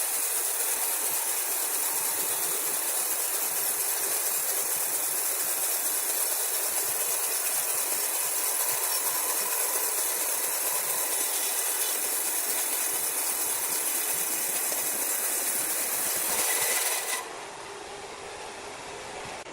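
Sawmill machinery running with a steady, high-pitched noise. About 17 seconds in it changes abruptly to a quieter, lower machine noise.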